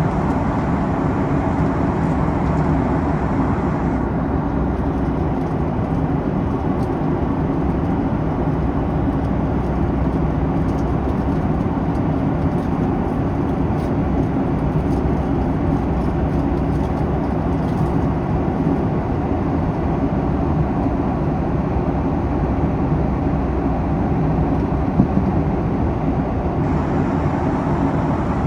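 Steady cabin noise of a Boeing 737 MAX airliner in flight: a constant, even rush of engine and airflow noise.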